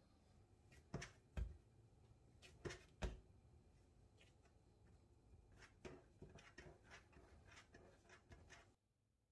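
Hands working bread dough in a bowl or on a counter. Four soft thumps come in the first three seconds, then a run of light taps and rubbing, and the sound cuts off abruptly near the end.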